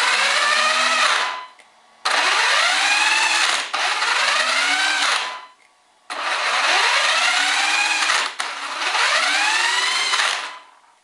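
Thunder Tiger eMTA electric RC monster truck's motor and gear drivetrain spun up at full throttle in three bursts, each a rising whine over a loud rasping noise; in the second and third bursts the whine breaks off briefly and climbs again. It is a very strange noise, which the owner suspects is a slipping pinion or spur gear after a crash.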